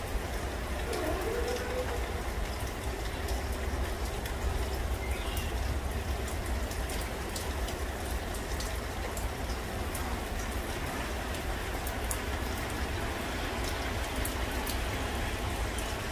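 Rain pattering steadily, with many scattered sharp drop hits, over a low wind rumble on the microphone.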